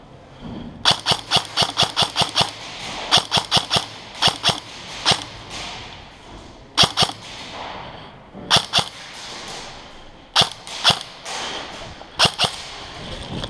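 Airsoft rifles firing in a large indoor hall: a fast string of about eight sharp shots about a second in, then single shots and pairs through the rest.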